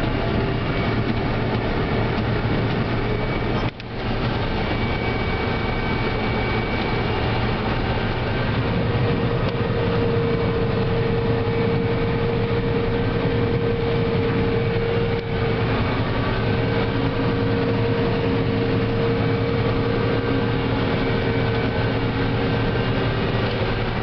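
Combine harvester running under load while harvesting corn with a corn head, heard from inside the cab: a steady machinery drone with a low hum, and a whine that grows stronger about nine seconds in.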